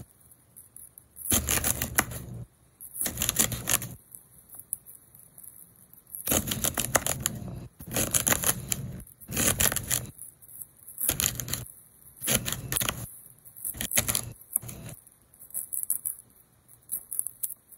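Kitchen knife chopping celery stalks on a tray: quick runs of crisp knocks as the blade cuts through and strikes the surface, with short pauses between runs.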